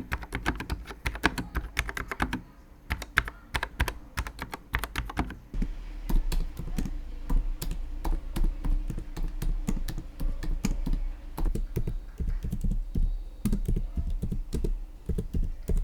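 Typing on three keyboards in turn for a sound comparison: a YK75 low-profile mechanical keyboard with red linear switches, a 2017 MacBook Pro butterfly keyboard and an M1 Pro MacBook Pro scissor-switch keyboard. The rapid key clicks change character about two and a half seconds in and again about five and a half seconds in.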